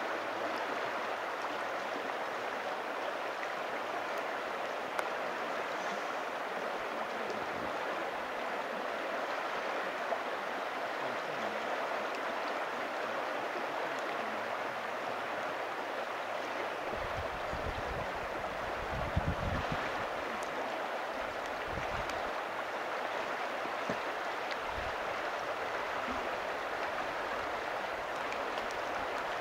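Steady rushing of river water running over a gravel bar, with a few low rumbles on the microphone about two-thirds of the way through.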